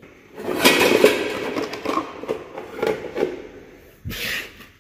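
Plastic and stainless-steel bowls clattering and knocking against one another and the wire dish rack as they are pulled out, then one solid knock near the end.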